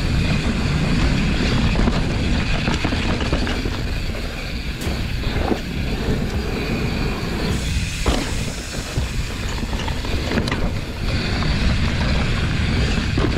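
Mountain bike rolling fast over a rough dirt trail: a steady rumble of tyres and rattle of the bike, with a few sharp knocks from bumps.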